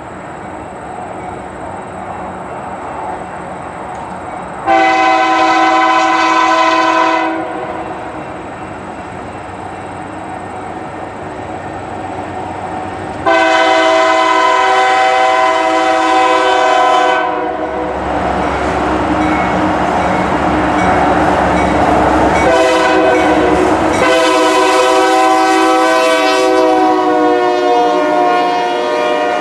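Union Pacific diesel freight locomotives sounding their air horns, a chord of several notes, in long blasts for grade crossings: two long blasts, then a short one and a long one near the end. Between the blasts the locomotives' engines and the train rumble loudly as they come up and pass close by.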